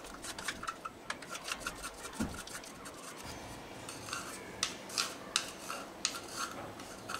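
A milk chocolate bar being scraped back and forth across the blade of a plastic handheld chip slicer, shaving off curls of chocolate. It makes repeated short scraping strokes, several a second.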